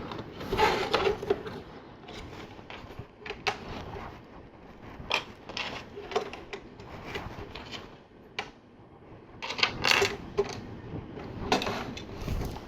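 Plastic LEGO bricks clicking and clattering as pieces are handled and pressed together: scattered irregular clicks and short rattles, with clusters about a second in, around five seconds, and near ten seconds.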